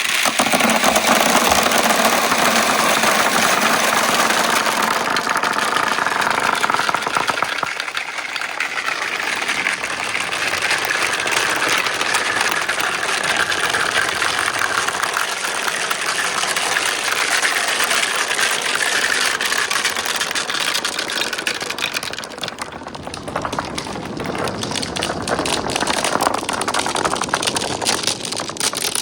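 Water rushing steadily down a water marble-run course, with glass marbles rolling and clicking along the track.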